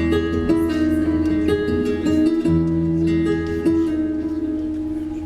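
Live band music led by plucked acoustic guitar playing a slow melody over held bass notes, with light percussion ticks; the bass drops out briefly about two seconds in.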